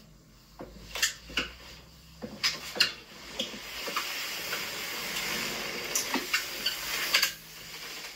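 Clicks and clatter of the glass cover and metal fittings of an RV galley stove being handled and raised, with a steady hiss for a few seconds in the middle.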